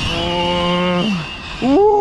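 Arrma Felony 6S RC car's brushless motor whining at high speed, a steady pitch with a thin high whine above it, dropping sharply about a second in.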